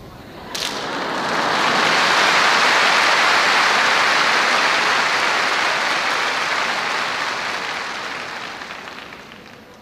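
Audience applause from a large crowd. It breaks out abruptly about half a second in, holds at full strength for a few seconds, then slowly dies away toward the end.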